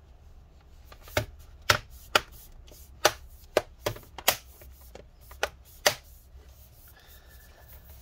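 An HP 17t-cn000 laptop's bottom cover clicking into place as it is pressed down along its edge: about eight short, sharp snaps of its clips, one after another at irregular intervals.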